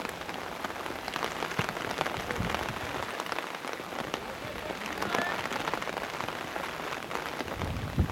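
Steady rain pattering close to the microphone, a dense run of small drop ticks over a soft hiss. A faint distant call comes about five seconds in, and a single thump just before the end.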